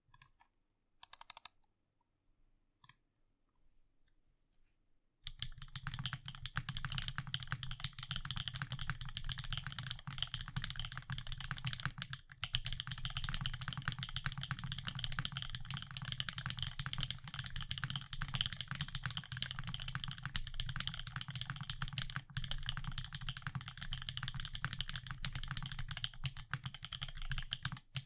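Cruel World CW88 tenkeyless mechanical keyboard, with stock Ducks switches, a forged carbon fibre plate, CRP keycaps and no foam dampening, being typed on. A few single key presses come first, then from about five seconds in, fast continuous typing.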